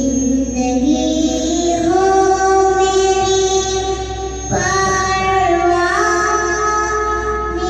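A young girl's voice singing a dua, a sung prayer, into a microphone in long held notes that step up and down in pitch, with a short breath between phrases about four and a half seconds in.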